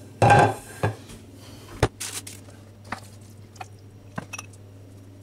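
A plate set down on a kitchen worktop with a clatter, followed by a sharp knock and scattered light clicks and taps of a spoon against a plastic pie press as filling is spooned in.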